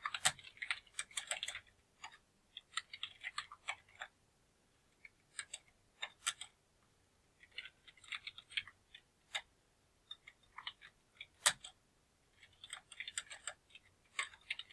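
Computer keyboard typing in short bursts of keystrokes separated by pauses, with one louder click late on.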